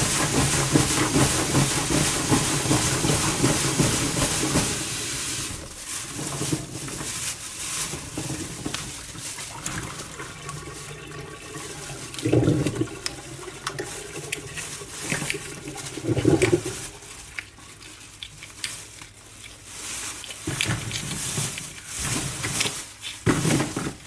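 Oysters being handled and shucked with a knife: scattered clicks and scrapes of shell and blade, with a plastic bag rustling. A steady rushing noise with a low hum fills the first five seconds and then stops.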